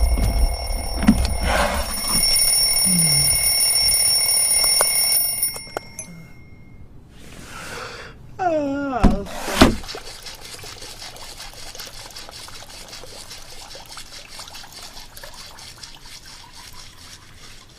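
Cartoon sound effects: an alarm clock ringing with steady high tones that cut off about five and a half seconds in, then a falling, wavering tone about nine seconds in, followed by a steady hiss.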